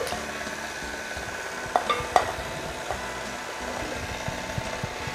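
KitchenAid Artisan stand mixer running steadily, its flat beater beating creamed butter while tamarind honey syrup is poured in. A couple of sharp knocks sound about two seconds in.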